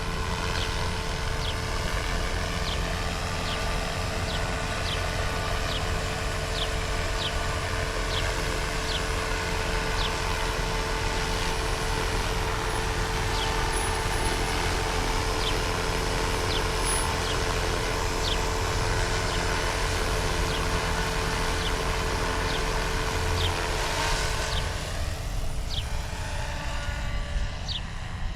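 Small helicopter flying low: a steady engine-and-rotor drone with a held tone that fades away about 25 seconds in.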